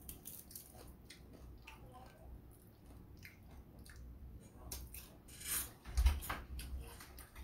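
Eating sounds: crispy deep-fried pig's head (crispy ulo) picked apart by hand and chewed, faint crackles and mouth clicks, with a louder knock about six seconds in.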